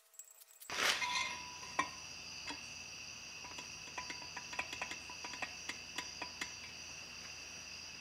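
Light metallic clicks and taps as the Top Performances 86cc kit cylinder is slid down over steel studs onto the aluminium scooter crankcase, a trial fit to check that it clears the newly machined cases. A steady faint high whine sits underneath.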